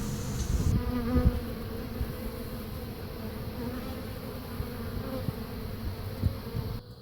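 A honeybee swarm buzzing as a steady hum while the bees fly in around a hive. It is mixed with low rumbling thumps on the microphone, and it cuts off suddenly near the end.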